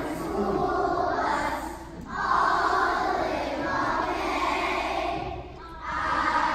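A large children's choir of first-graders singing together, with two brief breaks between phrases, about two seconds and five and a half seconds in.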